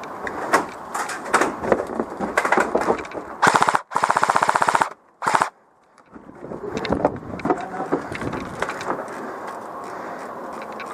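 Airsoft rifle firing: scattered single shots, then a loud rapid full-auto burst about three and a half seconds in, a short burst just after, and more scattered shots toward the end.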